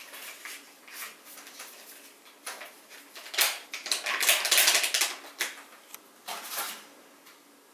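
Small packet of cream-of-tartar baking powder crinkling and rustling as it is opened and its powder shaken out into a stainless steel mixing bowl. The crackling is loudest about three and a half to five seconds in, with a shorter rustle about six and a half seconds in.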